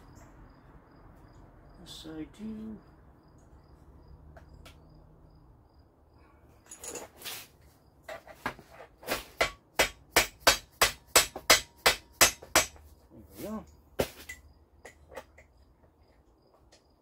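A quick run of sharp metallic clicks, about three a second for some four seconds around the middle, with a few single clicks before and after, from a wrench tightening the nuts on a Model A's front wishbones.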